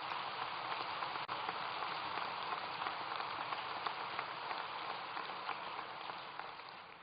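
Audience applause, steady and then dying away near the end.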